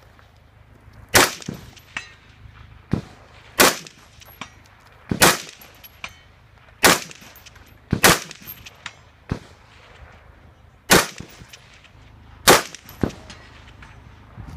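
Semi-automatic rifle fired in single shots one to two seconds apart, seven loud ones with fainter cracks between, each with a sharp ringing tail. Steel targets clang when hit.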